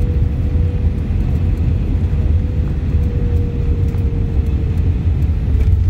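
Airbus A319 cabin noise as the airliner flares low over the runway on landing: a loud, steady rumble of airflow and engines, with one engine tone that sinks slightly in pitch over the last few seconds.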